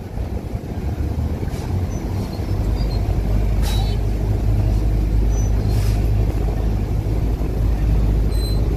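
The ferry's engine rumbling heavily at the landing, swelling louder about two and a half seconds in and then holding steady. A few brief hisses cut through it.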